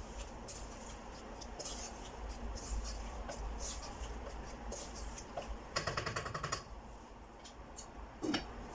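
Wooden spatula stirring and scraping cooked potatoes in a nonstick saucepan, with scattered soft scrapes and clicks. A brief quick rattle comes about six seconds in. Near the end a glass lid is set on the pan with a single clink.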